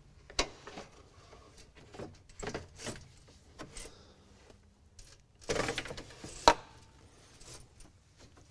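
Aluminum radiator being lowered into a car's radiator support and seated in its mounts: a string of light knocks, scrapes and rattles of metal against the chassis, with a louder cluster of clunks and a sharp knock about six seconds in.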